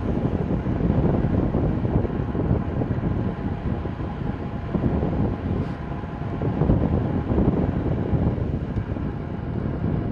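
Wind buffeting and rushing over the microphone of a camera riding along on a bicycle at speed, a steady gusting roar.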